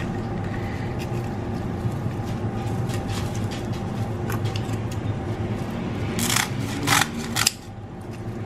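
Kitchen scissors snipping through dry nori sheets: a run of light, crisp cuts, with two louder snips about six and seven seconds in, over a steady background hum.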